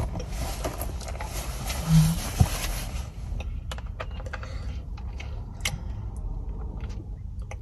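Scattered small clicks and ticks of handling over a steady low rumble, with a hiss in the first three seconds.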